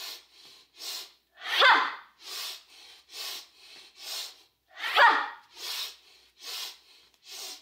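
A woman's Breath of Joy pranayama breathing: three quick sniffs in through the nose, then a loud, forceful 'ha' exhale through the mouth. The cycle goes twice, about one round every three seconds, and the 'ha' is the loudest part.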